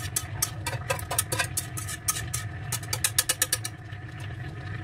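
Wire whisk scraping and tapping against the inside of a frying pan in quick, light clicks as the last of a cream sauce is scraped out. The clicks stop near the end, with a steady low hum underneath.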